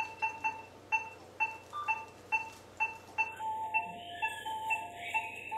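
Anaesthesia patient monitor beeping in time with the dog's heartbeat, short electronic beeps about two a second. From about four seconds in, a second, lower beep and some gliding higher tones join.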